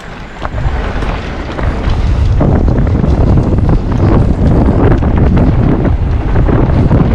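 Wind buffeting a GoPro Hero 9's microphone while riding a mountain bike at speed. It builds over the first two seconds or so and then stays loud, with short knocks and rattles from the bike running over the trail.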